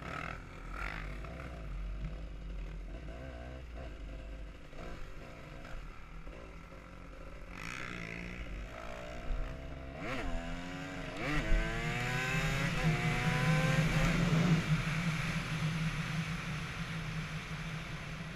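Dirt bike engine running at low revs, then accelerating hard about eight seconds in: the pitch climbs in three rising sweeps with short drops for the gear changes, then holds a steady, louder cruise.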